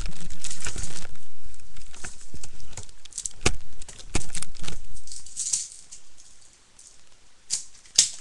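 Handling noise: a run of knocks, clicks and plastic rattling as a toy plastic pump-action BB gun is picked up and the webcam is moved. It is loudest in the first half, then thins to scattered clicks, with one sharp click near the end.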